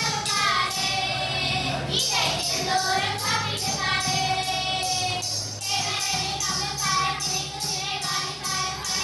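Children singing a Tamil villupattu (bow song), a held, chant-like melody, over a steady beat of jingling strikes on the bell-hung bow (villu), about three a second.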